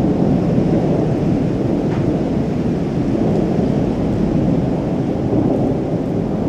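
Thunderstorm: a steady low rumble of rolling thunder with rain falling.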